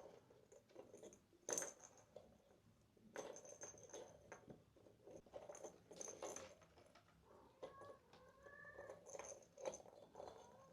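Kittens playing with toys: faint scattered taps, scuffs and small rattles from paws and toys, with a faint kitten mew about eight seconds in.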